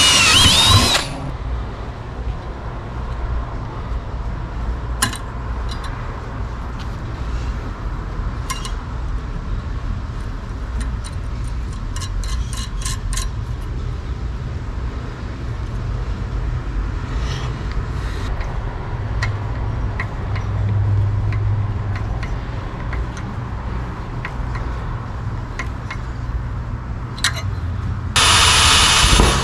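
Power drill running in two loud bursts, one ending about a second in and one starting near the end, drilling the mounting holes for a fan shroud. In between, a steady low rumble with scattered light clicks and taps.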